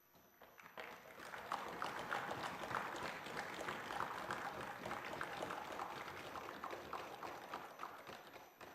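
Applause from the assembly members: a dense, even patter of many hands that builds up within the first second and dies away near the end.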